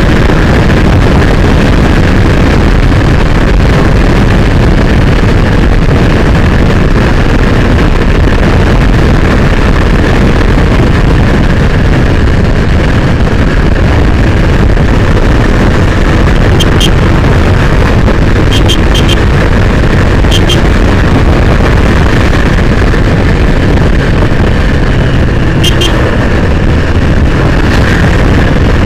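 Motorcycle riding at speed: a loud, steady rush of wind on the bike-mounted microphone with the engine running beneath it. A few short ticks come in the second half.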